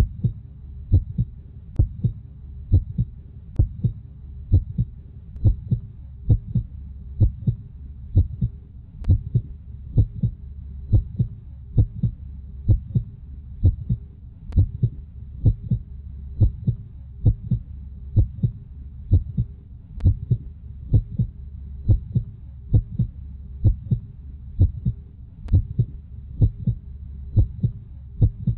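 A slow, regular heartbeat: paired thumps about once a second over a low steady hum.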